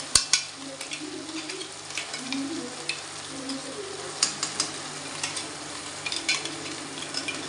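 Ground masala paste going into hot oil and fried onions in a steel kadhai, sizzling steadily as it fries. Sharp clinks of utensils against the bowl and pan come through the sizzle, the loudest just after the start.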